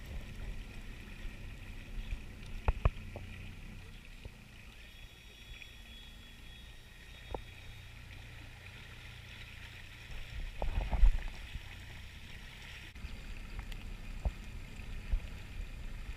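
A small boat on the water: a low rumble with scattered short knocks against the hull, and a cluster of louder knocks about eleven seconds in.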